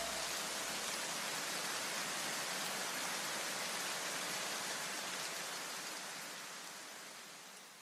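A steady hiss of broad, even noise with no tune or beat, fading out over the last two seconds.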